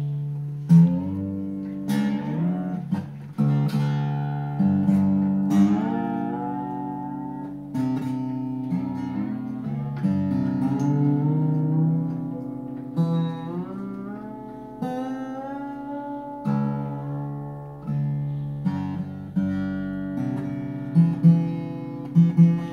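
Hagstrom cutaway acoustic guitar played solo: chords strummed every second or two and left to ring, with single notes picked between them.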